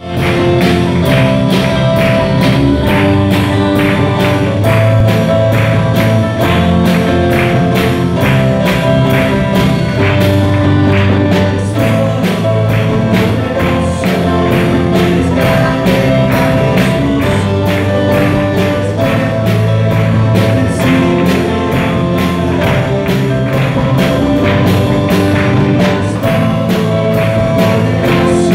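Live Christian worship band playing: a drum kit keeps a steady beat under electric guitar and bass guitar chords.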